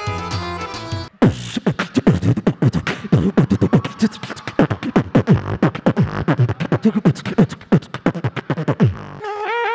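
Beatboxing into a handheld microphone over a PA: deep kick-drum booms that drop sharply in pitch, with snare and hi-hat clicks in a fast, dense rhythm. It opens with about a second of instrumental music that cuts off abruptly. Near the end the beat stops and a wavering, high held tone begins.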